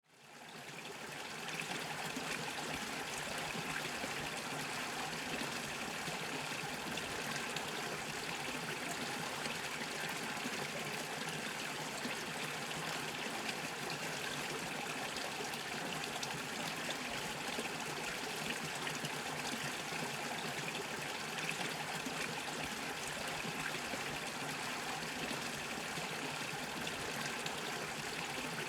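Small brook bubbling and trickling steadily over stones, fading in over the first second or two.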